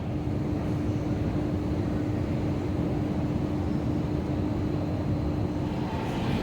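Metro train running, a steady rumble with a steady hum that stops about six seconds in.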